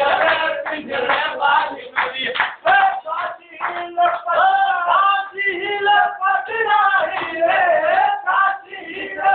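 A man singing a song, with long held notes that bend in pitch through the second half.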